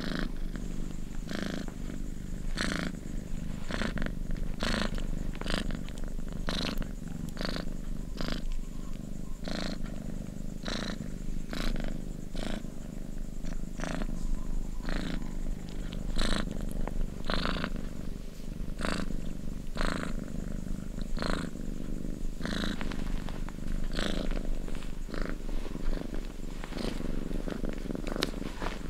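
Domestic cat purring steadily, a low rumble with a sharper pulse about once a second.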